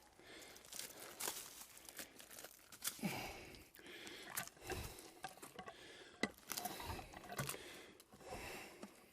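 Faint, irregular crunching, scraping and knocking as a jack pine log is wrestled by hand up onto a portable sawmill, bark rubbing and slipping.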